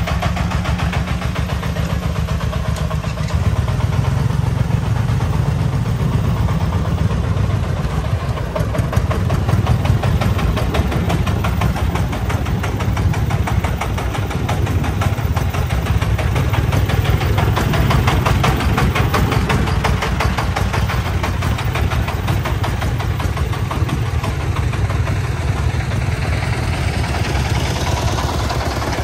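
Diesel engine of a loaded three-wheeled công nông dump truck running as the truck drives slowly past, with a rapid, even beat. It grows louder about three seconds in.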